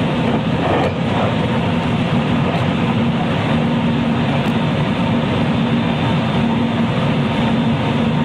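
Running sound inside a JR West 223 series electric train's motor car at steady speed: a constant rumble of wheels on rail with a low hum from the drive that fades in and out.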